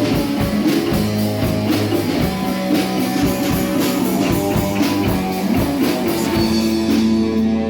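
Live rock band playing guitar and drum kit. About six and a half seconds in the drums stop and a final held chord rings out, ending the song.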